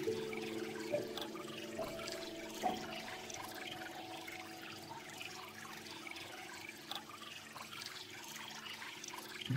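Soft background music of a few sustained notes: new notes come in about one, two and three seconds in, then hold and slowly fade. Faint scattered crackling sits underneath.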